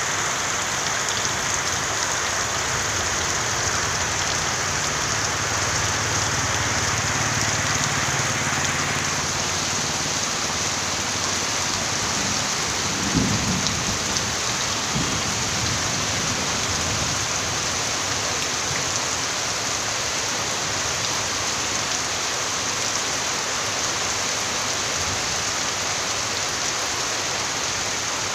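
Rain falling steadily on a waterlogged road and its puddles, with one brief low thump about halfway through.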